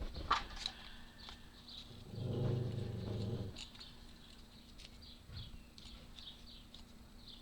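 A puppy growling low, one growl of about a second and a half starting about two seconds in, with light clicks of small parts being handled.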